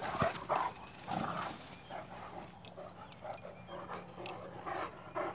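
Large dogs panting close by, in short uneven breaths.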